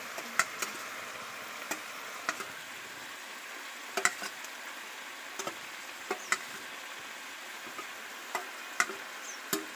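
Chicken sizzling in an iron kadai, with a dozen or so scattered sharp taps and scrapes of a steel spatula on a steel plate as spices are scraped into the pot.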